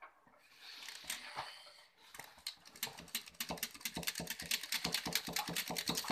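A metal utensil stirring a thick baking mixture in a stainless steel bowl, clicking and scraping rapidly against the bowl, many strokes a second. The clicking starts about two seconds in.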